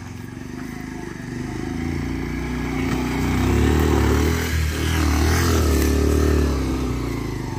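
Motorcycle engine pulling up a dirt slope, its note rising as it comes closer. It is loudest for a few seconds as the bike passes right by, then eases off near the end.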